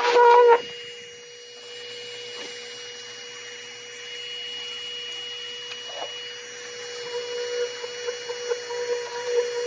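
Hoover Power Scrub Elite carpet cleaner's motor humming loudly, then dropping sharply about half a second in to a quieter steady hum with a thin high whine; near the end it grows louder and uneven again.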